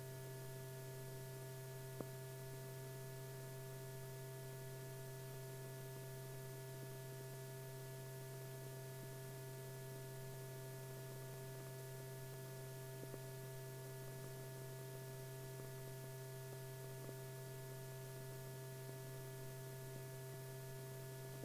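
Faint steady electrical hum over a low hiss, from an old film soundtrack, with one small click about two seconds in.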